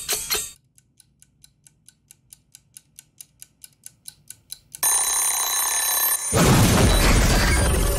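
Wind-up kitchen egg timer ticking at about four ticks a second, loud at first and then faint. About five seconds in its bell rings. Just after six seconds a loud crash breaks in with dramatic music.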